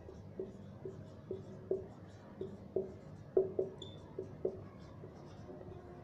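Marker pen writing on a whiteboard: short, irregular strokes of the tip, about two a second, as the letters are formed.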